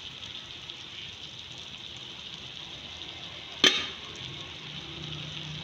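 Beaten eggs and chopped tomatoes sizzling in a frying pan, a steady hiss, with one sharp clack about two-thirds of the way through.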